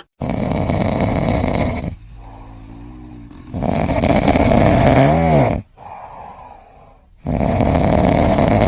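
A sleeping pet snoring loudly: three long snores about three and a half seconds apart, with quieter breathing between.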